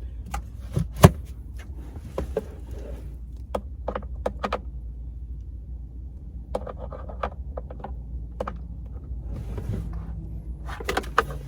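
Scattered clicks and knocks of things being handled in a small space, the sharpest about a second in, over a steady low hum.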